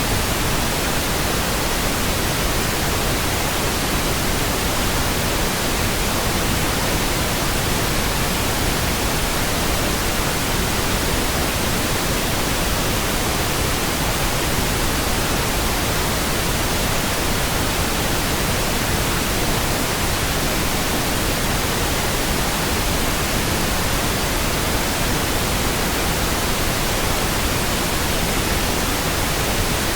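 Steady synthetic pink noise: an even, unchanging hiss spread across all pitches, with no breaks or sudden sounds.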